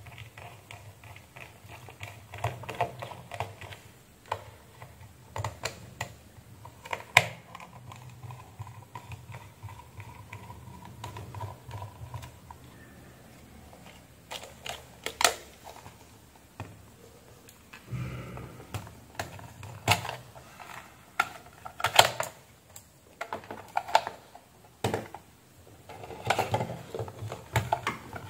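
Screwdriver and hands working on the plastic housing of a handheld barcode scanner while it is unscrewed and opened: irregular small clicks and knocks of metal on plastic, with a few louder knocks.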